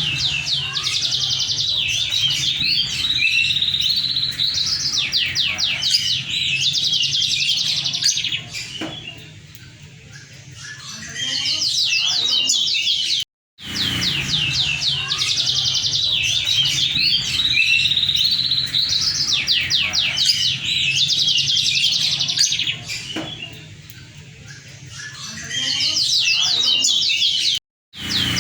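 A moken (yellow-fronted canary × domestic canary hybrid) singing a fast, high, chattering song full of rapid trills. The same recorded passage plays twice, with a brief cut between the two.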